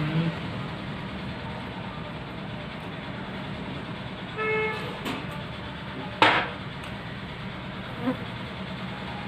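Steady background hum, broken by a short horn toot about four and a half seconds in. A single sharp clack follows about a second and a half later.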